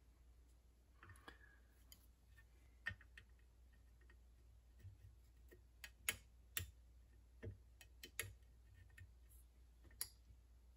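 Faint, irregular clicks and ticks, about a dozen, from a soldering iron tip and leftover IC leads being worked on a circuit board while desoldering, over a faint steady low hum.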